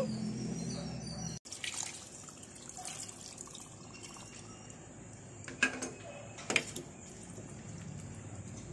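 Water poured from a cup into a pot of chicken and potato curry, splashing into the sauce, with two sharp knocks against the pot near the middle.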